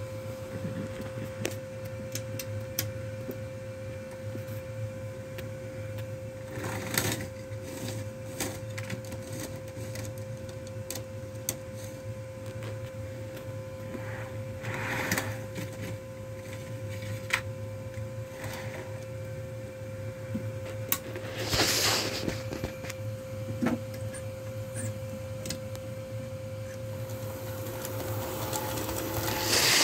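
Model train running on the layout: a steady whirring hum with scattered light clicks of wheels on the track. It grows loud near the end as the diesel locomotive and boxcar pass close by.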